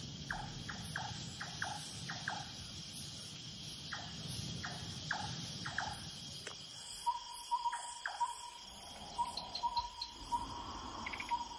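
Steady night drone of crickets and other insects. Short chirps are scattered through the first half, and from about seven seconds in comes a run of short piping notes, all on one pitch.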